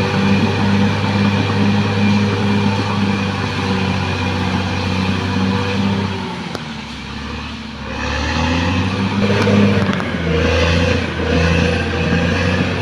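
Caterpillar D6R XL bulldozer's diesel engine running steadily under work. Its note drops for about two seconds around the middle, then comes back up.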